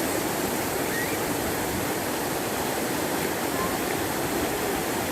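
Steady rushing of flowing river water, an even unbroken wash, with a few faint short high notes over it.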